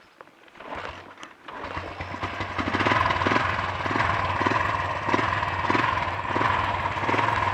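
Honda XL350 single-cylinder four-stroke motorcycle engine turning over and catching about a second and a half in, then running steadily at idle.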